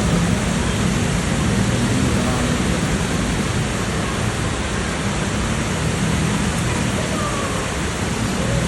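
Heavy rain pouring down in a dense, steady hiss, with a faint low hum underneath.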